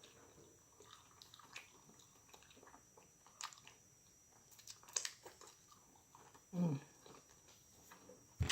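Close-up mouth sounds of someone eating jerk pork chops and sautéed vegetables: chewing with small wet smacks and clicks. A short, low voiced sound from the throat comes about two-thirds of the way in.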